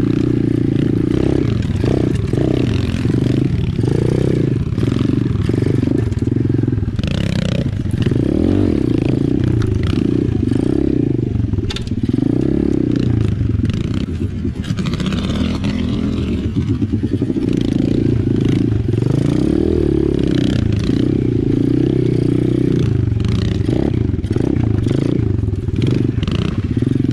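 Apollo RFZ 125cc pit bike's single-cylinder four-stroke engine running at low revs, its note rising and falling as the throttle is worked on and off. Scattered knocks and rattles from the bike jolting over rough ground.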